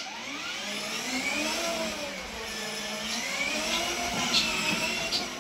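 Electric motors of a children's ride-on toy BMW car whining as it drives, the pitch rising as it starts off and then sweeping up and down as it speeds up and slows. A few short clicks come near the end.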